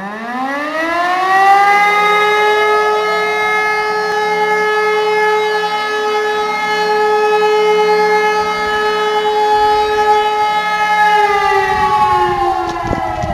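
German civil-defence sirens, E57 mechanical sirens among them, sounding the fire-alarm (Feueralarm) signal. The sirens wind up over the first couple of seconds, a second siren rising a little behind the first. They hold one steady howling tone, then begin winding down about eleven seconds in, ending the first long blast of the signal.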